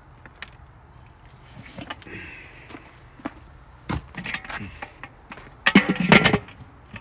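Handling noises at a charcoal kettle grill: a few scattered knocks, then the kettle's metal lid clattering onto the bowl about six seconds in, the loudest sound.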